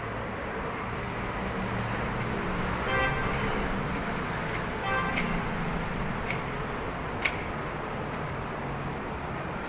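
Steady hum of city street traffic, with two short horn toots about three and five seconds in and a few sharp clicks after them.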